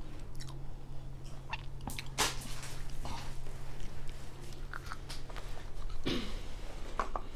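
Soft close-up eating sounds: scattered mouth clicks and smacks as an edamame pod is put to the lips and eaten, with one sharper click about two seconds in.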